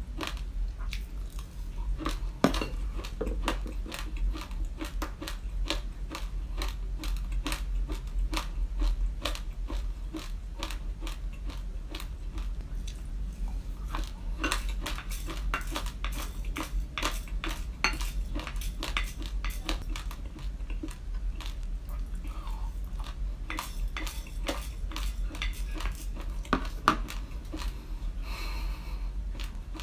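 Raw glutinous rice grains being bitten and chewed close to the microphone: a dense, continuous run of sharp crunches, several a second, over a steady low hum.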